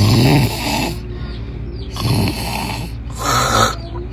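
A person snoring loudly in rough, rasping bursts: a long snore at the start, then shorter ones about two and about three seconds in.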